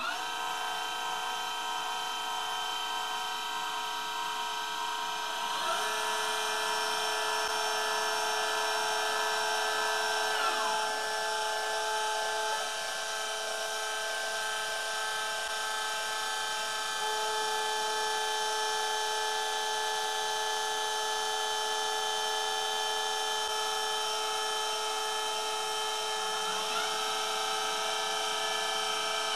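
Celestron Advanced VX equatorial mount's drive motors slewing: a steady electric whine made of several high tones at once. Its pitch glides up or down briefly several times as the motors change speed.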